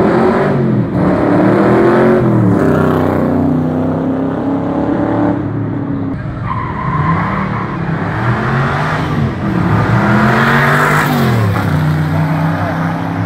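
Shelby Cobra replica V8 engines accelerating hard down the street, the engine note climbing and then dropping several times as the cars shift up through the gears.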